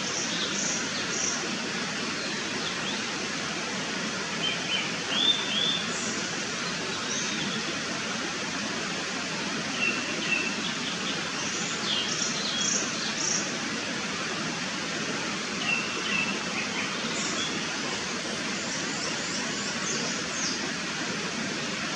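Japanese thrush singing: short, varied phrases every few seconds, over a steady background hiss.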